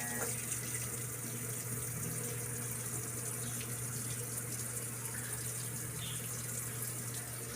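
Whirlpool 8MWTW224WJM washing machine filling with water at the start of its wash cycle: a steady rush of water pouring into the drum over a low, even hum.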